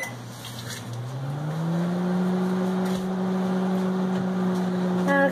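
Microwave oven starting up: its running hum rises in pitch over the first couple of seconds, then holds steady.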